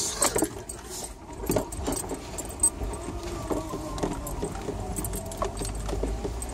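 Off-road 4x4 crawling down a rocky, rutted dirt trail, heard from inside the cabin: loose items jangling and clattering, with knocks as the vehicle bumps over rocks, over a low engine and drivetrain rumble.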